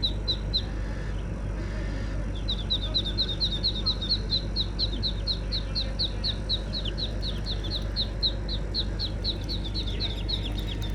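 Muscovy ducklings peeping: short, high calls that each slide down in pitch, repeated rapidly at about four or five a second. A few come at the start, then, after a short pause, they run on steadily until shortly before the end, over a steady low hum.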